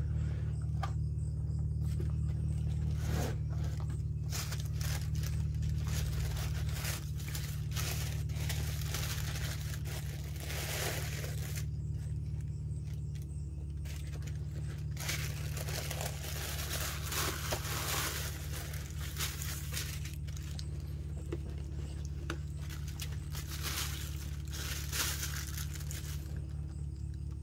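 Irregular crinkling and rustling of sneaker packaging being handled during an unboxing, over a steady low hum.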